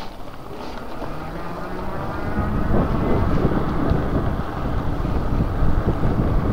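Wind buffeting the microphone on a moving e-bike: a low rumble that grows louder about two seconds in.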